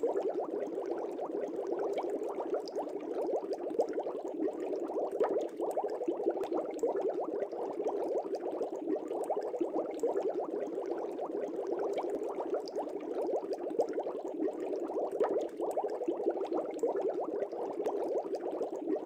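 Steady, dense bubbling of aquarium water, with many small bubbles popping without pause.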